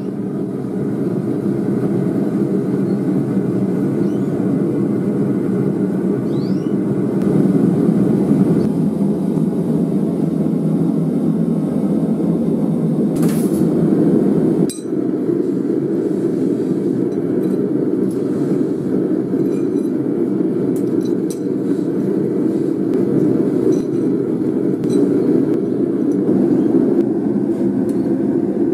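A forge burner running with a steady rushing sound, with a brief dip about halfway through and a few light metallic clinks in the second half.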